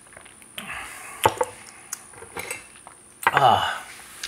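A small porcelain tea cup set down on a wooden tea tray: a sharp click about a second in, then a few lighter taps of ceramic. Near the end a man gives a short, falling vocal sound, like an appreciative "mm".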